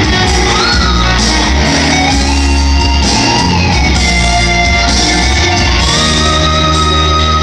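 Loud live pop-rock band music over the stage PA: steady bass and drums under a held, gliding melody line.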